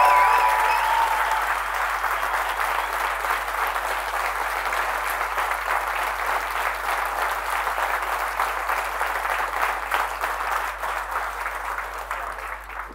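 Large audience applauding, a long round of clapping that tapers off near the end.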